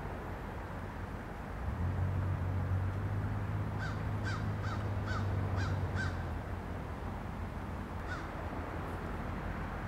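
A crow cawing six times in quick succession about four seconds in, and once more near the end. Under the calls is the low, steady rumble of an approaching diesel locomotive.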